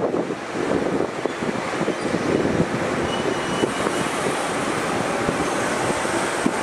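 Boeing 787 Dreamliner jet engines running at takeoff power during the takeoff roll: a steady, even rush of noise.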